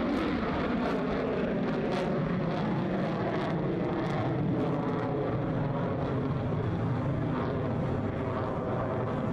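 Loud, steady jet noise from an F-22 Raptor's twin Pratt & Whitney F119 turbofan engines as the fighter flies overhead.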